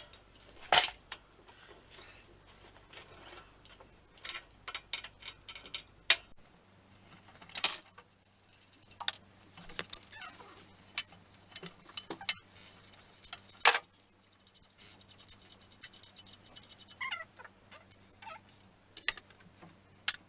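Scattered, irregular clicks and knocks of hand tools and metal parts being handled while a bicycle is taken apart.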